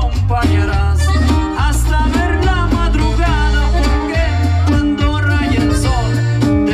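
Live amplified norteño band playing: heavy electric bass and drums under guitar and a wavering accordion-style melody line, with singing.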